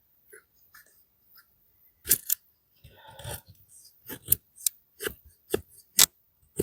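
D2 steel blade of a folding knife shaving feather curls off a wooden stick: a series of short, sharp scraping strokes at an uneven pace, with one longer rasping cut about three seconds in.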